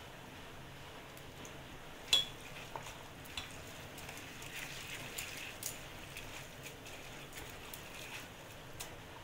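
Hand mixing washed rice and flattened rice (poha) in a stainless steel bowl: soft wet rustling, with a sharp clink against the steel about two seconds in and a few lighter ticks after.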